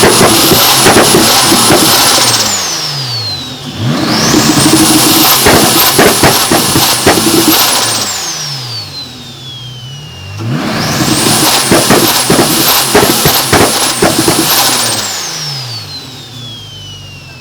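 Turbocharged BMW M52B28 2.8-litre straight-six on a straight-pipe exhaust, revved hard three times with loud exhaust pops and bangs through each rev. After each rev the revs fall away, and a high turbo whistle slides down in pitch as the turbo spools down.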